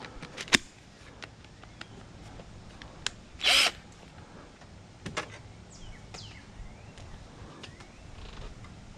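Scattered clicks and knocks of hand tools working a stuck fastener on a microwave oven's sheet-metal casing, with a loud click about half a second in and one short hiss about three and a half seconds in.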